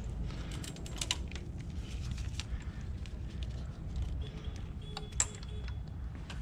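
Small clicks and rattles of gloved hands handling the carburetor bank of a Yamaha V-Star 1100 and its hoses while fitting it back between the cylinders, with a sharper click about five seconds in, over a steady low rumble.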